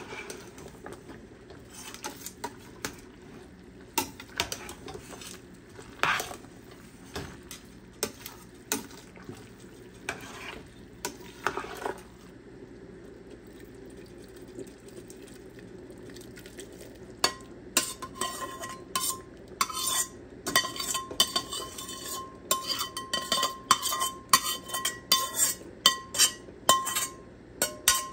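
Metal utensil stirring food in a cooking pot, scraping and clinking against the pot, over a steady sizzle. From about halfway through, the strikes come quickly and ring with a metallic tone.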